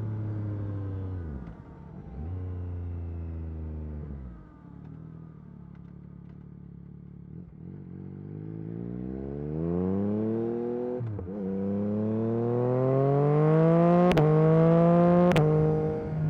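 Yamaha MT-09 SP's 890 cc inline-three through an Akrapovic Carbon Racing exhaust: the engine note falls as the bike slows with a couple of downshifts, runs low and quiet for a few seconds, then climbs steadily under acceleration through the gears, with two sharp cracks at the upshifts near the end before it settles to a steady cruise.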